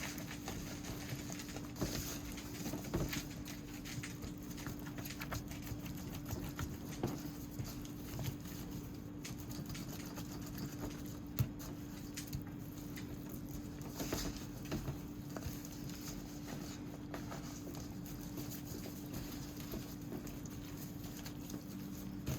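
Smoked turkey necks frying in melted butter in a pot, with irregular small pops and crackles over a steady low hum.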